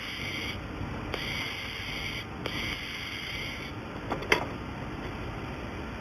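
Welding machine firing in three bursts of about a second each, a high buzzing whine that starts and stops sharply, over steady machine noise. Two sharp clicks follow about four seconds in.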